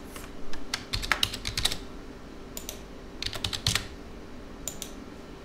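Computer keyboard typing in short bursts of quick key clicks as a username and password are entered, with pauses between the bursts.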